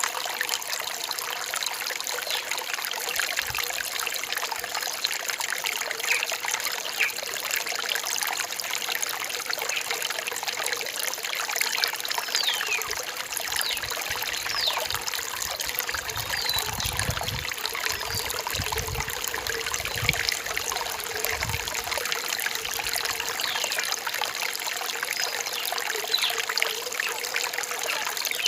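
Small rainforest stream trickling and babbling over rocks: a steady, even rush of water with many small splashes and gurgles.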